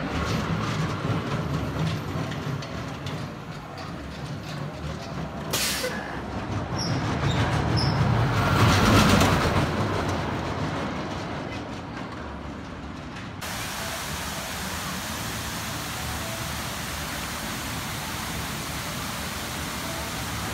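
A steel roller coaster train running along its track, building to a loud pass about nine seconds in and then fading. About halfway through it gives way to the steady rush of water from fountain jets.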